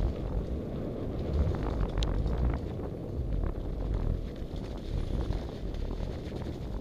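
Mountain bike descending a wet, muddy, rocky trail at speed: wind buffeting the microphone over the steady rumble of the tyres on the dirt. Many small knocks and rattles come through as the bike hits rocks.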